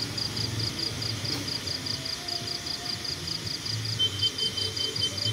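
Night insects chirping in a steady, rapid pulse, about six chirps a second, with a second, lower-pitched insect joining in about four seconds in, over a low background hum.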